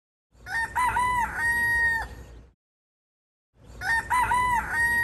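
A rooster crowing cock-a-doodle-doo twice. Each crow is a few quick notes ending in one long held note; the second crow starts about three and a half seconds in.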